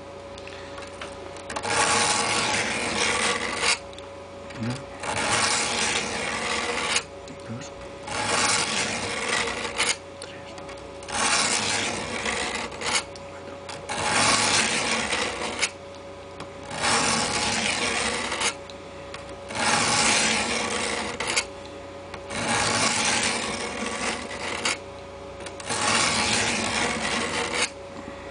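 Steel folding-knife blade drawn across the coarse 200-micron face of a diamond-dust sharpening plate, about a dozen long rasping strokes with short pauses between them, the first stage of sharpening a badly dulled edge.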